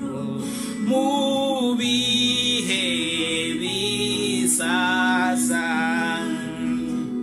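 A man singing a slow worship song solo in long, drawn-out notes that slide between pitches, over a steady sustained note beneath the voice.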